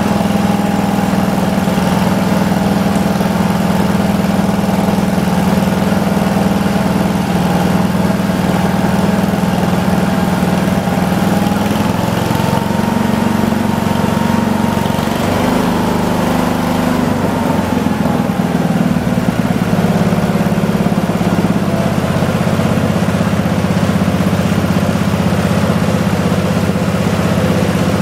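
Briggs & Stratton 16 HP cast-iron, ball-bearing L-head engine, just overhauled, running steadily on its test run. Its speed rises a little about halfway through and settles back to a steady run a few seconds later.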